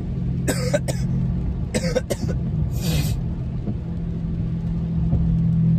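A person coughing in three short bursts within the first three seconds, after a hit from a vape pen. Under it runs the steady low hum of the car's engine and road noise inside the cabin.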